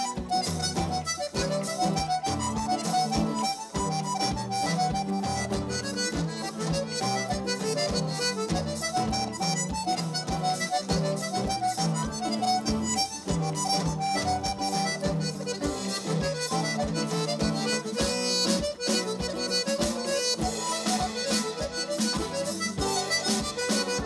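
Irish traditional reel played live: a button accordion carries a quick, busy melody over guitar chords and a steady drum beat.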